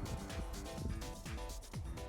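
Background music with a steady beat and deep, falling bass notes.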